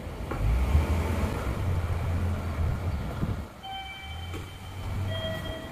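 A heavy low rumble for about three seconds drops away. Then come two short electronic chime tones about a second and a half apart, the second a little lower than the first.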